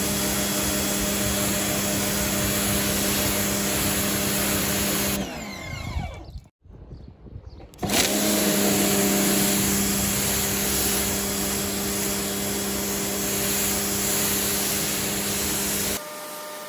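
Greenworks electric pressure washer spraying: a steady motor-and-pump hum under the hiss of the water jet. About five seconds in the trigger is released and the motor winds down with falling pitch and stops; about two seconds later it starts again and runs on.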